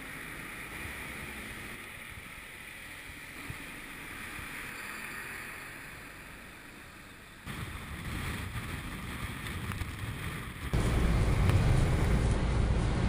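Vehicle noise: a semi-truck with container trailers driving slowly past, with wind on the microphone. About seven seconds in the sound cuts to a louder low rumble. A little before the end it cuts again to a loud rumble of road and tyre noise heard from inside a car driving on a slushy road.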